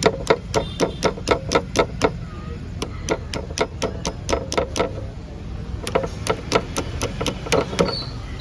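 Hammer blows in quick succession, about four a second, in three runs with short pauses between them.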